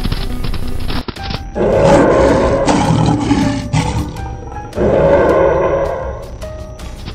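Two long animal roar sound effects over background music, the first starting about one and a half seconds in and the second about five seconds in.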